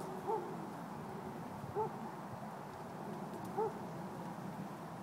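An animal's short call, repeated three times about every one and a half to two seconds, each a single rising-and-falling note, over a steady background hum.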